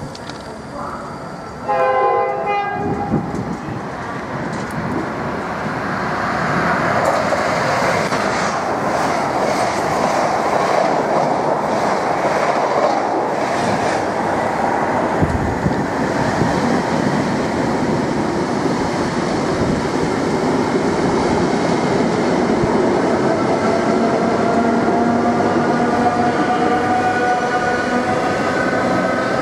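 A train horn sounds once, briefly, about two seconds in. Then a Class 90-hauled express rushes past at speed, wheels clattering over the rail joints, over the rumble of a departing Mk3 coach set. Near the end a rising whine comes from the departing set's Class 90 electric locomotive as it accelerates.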